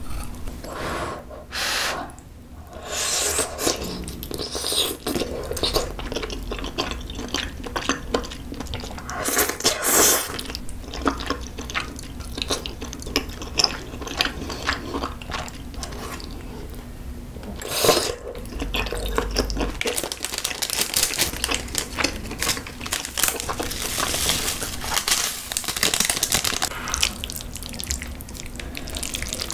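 Close-up wet eating sounds: sticky chewing and slurping of melted corn cheese and spicy stir-fried noodles, full of quick moist smacks and clicks, with a few louder slurps.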